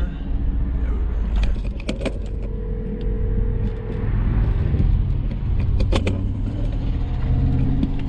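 Steady engine and road rumble inside a moving SUV's cabin. About two seconds in, a phone ringback tone sounds for two seconds: an outgoing call ringing on the other end. A few sharp clicks are heard around it.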